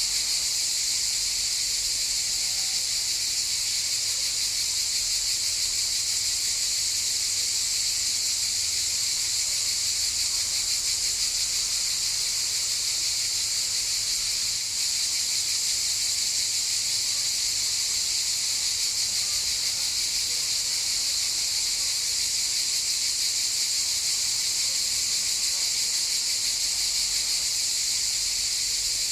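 Chorus of cicadas buzzing: a steady, unbroken high-pitched drone.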